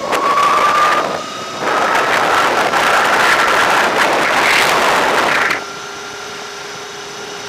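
Wind buffeting the microphone of a moving Throne SRPNT electric motorbike, over a thin whine from the bike that slowly rises in pitch. The wind noise dips briefly about a second in and drops away suddenly near the end, leaving the whine steady.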